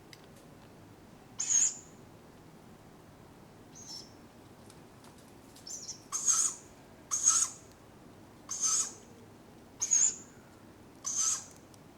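Tawny owlets giving hoarse, screechy food-begging calls, each about half a second long. There are a few scattered calls at first, some faint, then a steady series of louder calls about every second from halfway through.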